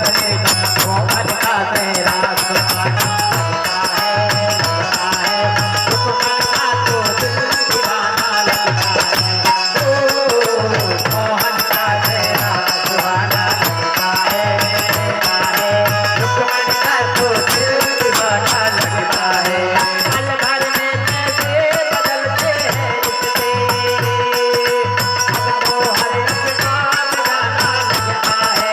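Instrumental music of a Hindi devotional bhajan: a melody over a steady beat and busy hand percussion, with no singing.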